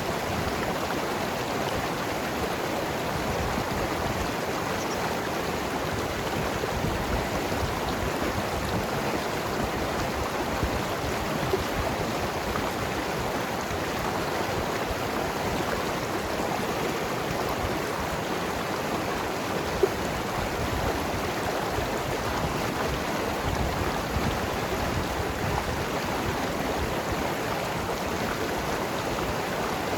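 Mountain river flowing and gurgling over rocks in a steady rush of water, with a few small splashes, the sharpest a little before two-thirds of the way in.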